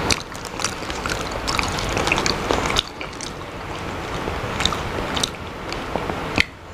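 A person chewing and eating, with irregular small clicks and smacks of the mouth and food.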